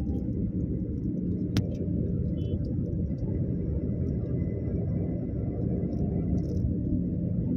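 Steady low road rumble of a moving car, heard from inside its cabin, with a single sharp click about one and a half seconds in.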